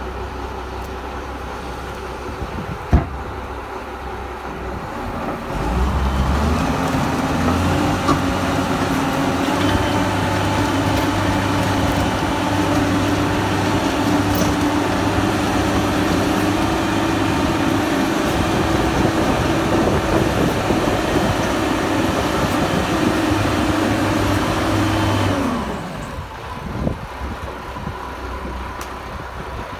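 Texoma 900T crawler rotary drill's diesel engine idling, then speeding up about five seconds in and running steadily under load for about twenty seconds while the auger drills down into the ground, before dropping back to idle near the end. One sharp knock about three seconds in.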